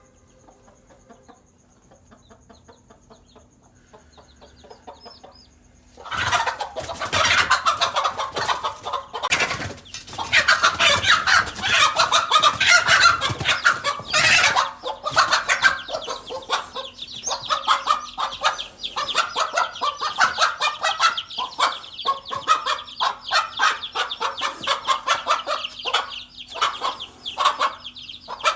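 A mother hen clucking and cackling loudly and rapidly, starting suddenly about six seconds in and carrying on without a break: the alarm calls of a hen defending her chicks against a king cobra.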